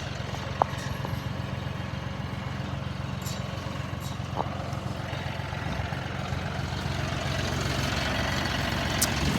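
An engine running steadily with a low hum, growing slightly louder near the end, with a couple of faint clicks.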